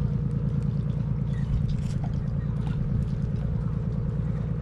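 Steady low engine rumble with a fast, even pulsing, unchanging throughout, with a few faint clicks over it.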